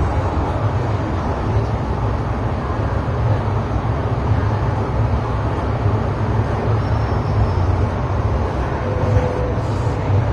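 MTR Tsuen Wan line electric multiple-unit train running at speed, heard from inside the carriage as a steady low rumble of wheels on rail and running gear.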